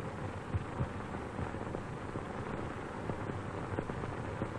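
Steady hiss with scattered irregular crackles and pops from an old optical film soundtrack, over a faint steady hum-like tone.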